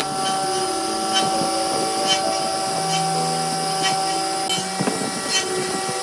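Background music of soft, held notes that change pitch every second or two, with a few light knocks from handling the laminated wood strips and clamps.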